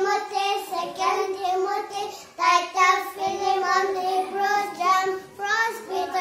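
Two young boys singing the names of the New Testament books in a sing-song chant, voices only, one held note after another.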